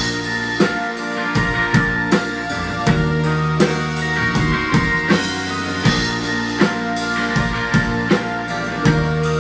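Live rock band playing a song, with drum kit hits keeping a steady beat under sustained guitar chords.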